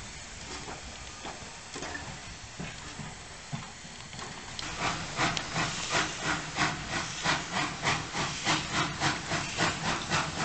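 Steam locomotive hissing steam, then, about halfway through, its exhaust chuffing in a regular beat of roughly three chuffs a second as it works under steam. The chuffs are the loudest part.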